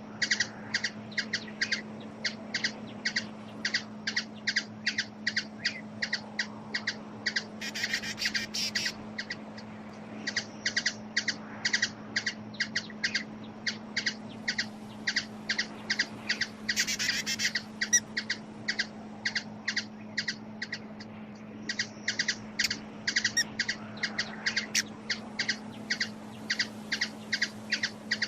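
Hummingbird giving a rapid, steady series of short, high chip notes, about three a second, with a couple of brief pauses. A constant low hum runs underneath, and two short hissy bursts come about a third and two thirds of the way through.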